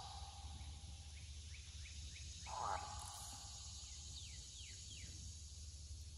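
Faint steady white-noise hiss from the Necrophonic ghost-box app on a phone, with one short garbled burst from it about two and a half seconds in. A bird gives a few short falling chirps twice.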